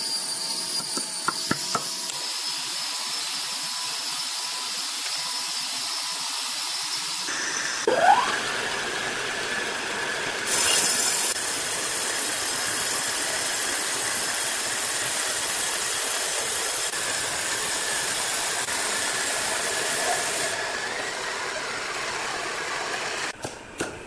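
Band sawmill machinery running steadily, with a few sharp knocks in the first two seconds and a short rising squeal about eight seconds in.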